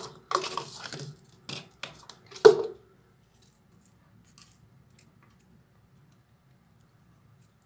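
Wooden chopsticks clicking and knocking against a sink and a plastic container as wet, bleach-soaked tissue is picked off the silicone seam: a quick series of clicks with some rustling over the first few seconds, the loudest knock about two and a half seconds in.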